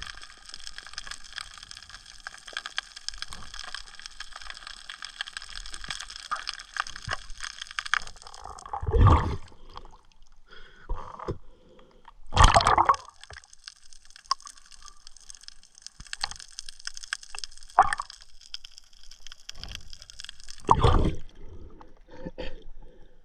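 Water gurgling and sloshing around a night spear-fishing diver, with four louder splashing bursts, over a steady high whine that drops out twice.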